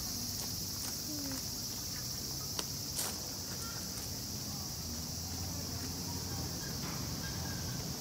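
A steady, high-pitched chorus of insects droning in the temple trees, over a low background rumble. Two sharp clicks about three seconds in.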